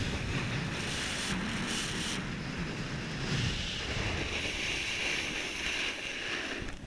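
Snowboard edge scraping and hissing over snow while carving downhill at speed, mixed with wind rushing over the microphone; it eases off near the end.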